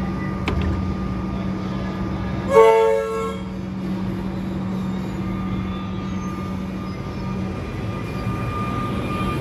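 Melbourne Metro electric suburban train moving off along the platform, with a steady hum and a steady high tone from its running gear. It gives one short horn toot about two and a half seconds in, the loudest sound.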